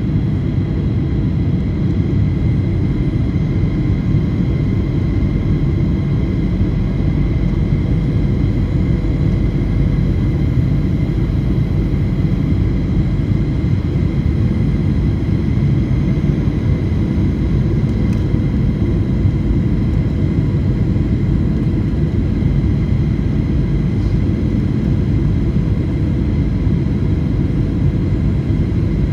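Steady rumble of jet airliner cabin noise, with faint steady high tones over it, heard from inside a Flydubai Boeing 737 on its approach to landing.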